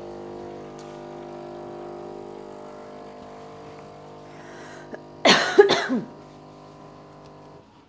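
A steady electrical hum from a running kitchen appliance, stopping near the end. About five seconds in comes a short, loud cough.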